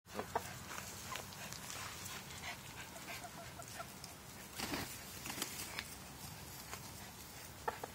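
A flock of chickens making scattered short clucks while crowding and scuffling for banana pieces, with small taps and rustles among them.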